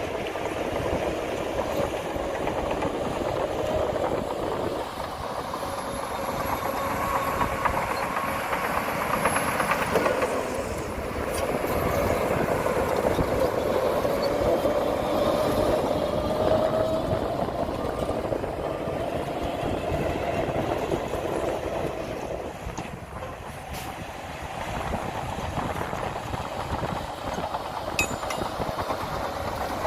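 Crawler bulldozer at work: its diesel engine runs under load while the steel tracks clatter steadily.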